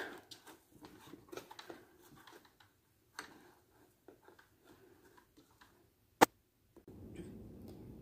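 Hands working on the underside of an upturned Shark robot vacuum, pulling tangled hair off its parts: faint scattered plastic clicks and rustles, with one sharp click about six seconds in.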